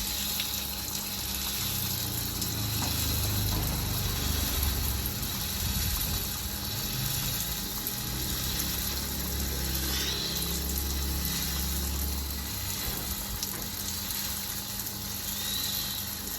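Running water splashing steadily as a large tortoise is washed under it.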